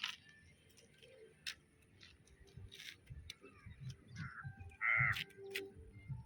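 Crows cawing outdoors: two short harsh caws about four and five seconds in, the second louder, over faint clicks and low rumbling.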